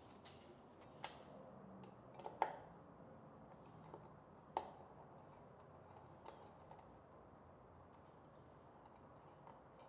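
Near silence broken by a few faint clicks and taps, the sharpest about two and a half and four and a half seconds in: small metal bolts being handled while a fuel cap is fitted.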